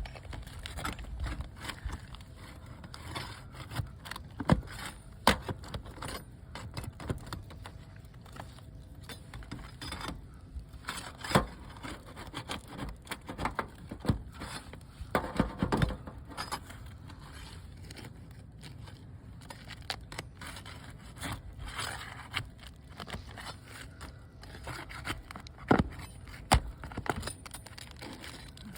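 Hand tools scraping and knocking irregularly on asphalt roof shingles as they are worked around a roof vent, with a few sharper knocks standing out.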